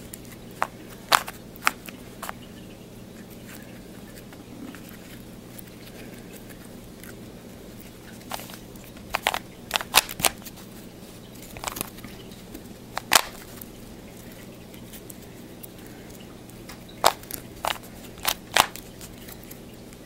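Plastic Rubik's Cube layers being turned by hand, giving sharp clicks and clacks in irregular clusters with pauses of several seconds between them, over a steady low hum.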